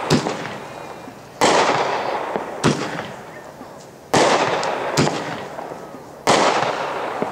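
Black Cat Blue on Blue aerial repeater firing shot after shot, three times over. Each shot is a sharp launch crack, then about a second and a half later a louder bang in the air that fades slowly.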